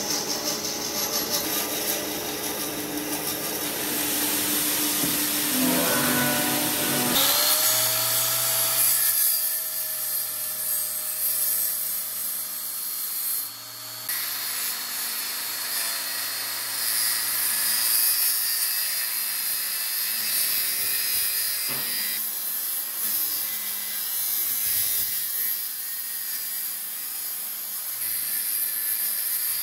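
Maktec handheld circular saw spinning up about a quarter of the way in, then cutting along the edge of a thick wooden tabletop with a steady whine under load. Mixed workshop machine noise comes before it.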